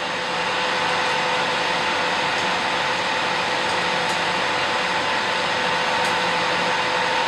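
Steady whirring machine hum with a constant whine in it, from a CNC machining centre running at idle. A few faint light clicks come through as a hex key works the fixture bolts.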